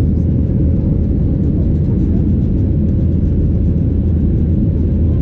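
Steady low drone of a Boeing 737-800's CFM56-7B jet engines at climb power, with the rush of air over the fuselage, heard from inside the passenger cabin during the climb after takeoff. A faint steady hum sits above the drone.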